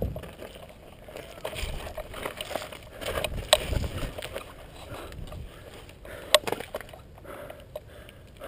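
Rustling and scuffling close to the microphone, with a few sharp clicks, the clearest about three and a half seconds in and again about six seconds in.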